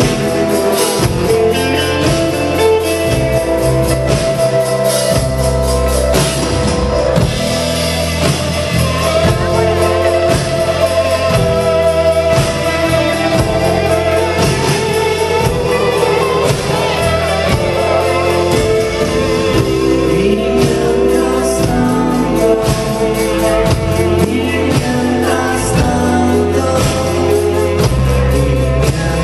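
Rock band playing live at full volume: drum kit, electric guitar and bass, with a singing voice over them.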